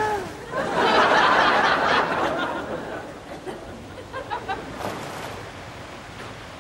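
Audience laughter that swells about half a second in and dies away over the next few seconds, with a smaller ripple of laughs a little later.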